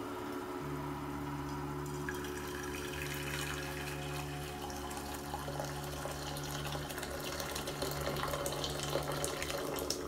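Water pouring in a stream into a stainless steel saucepan, splashing on the metal and into the filling pan, a little louder near the end. A steady low hum runs underneath from just after the start.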